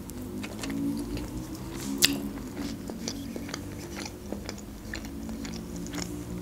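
Close-up chewing of a mouthful of toasted bread topped with grated ham: wet mouth clicks and small crunches, one louder crunch about two seconds in.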